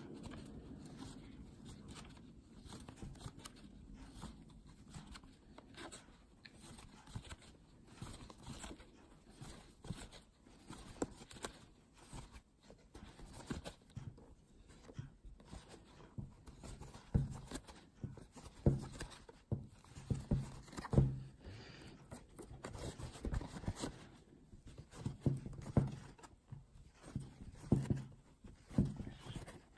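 Faint handling sounds of crochet work: a metal crochet hook pulling yarn through stitches with soft rustling and small irregular clicks and taps, busier and a little louder in the second half.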